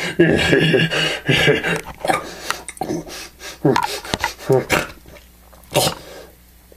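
A man imitating an ape, with growls and grunts. The sound is loud and continuous for about the first two seconds, then breaks into short bursts that die away near the end.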